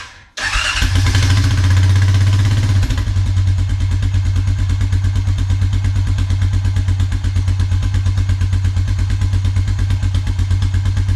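An old Honda ATV engine, starting for the first time after its carburetor was cleaned and its fuel lines and primer pump replaced. It cuts out for a moment right at the start, then catches and runs high for about two seconds before dropping to a steady idle with an even pulse.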